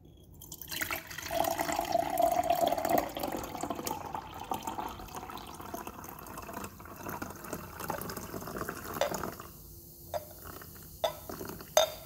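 Two liquids, a luminol solution and a hydrogen peroxide–potassium ferricyanide solution, poured together into a glass beaker, splashing and filling. The pour is strongest in the first few seconds and tapers off, then a few sharp clicks come near the end.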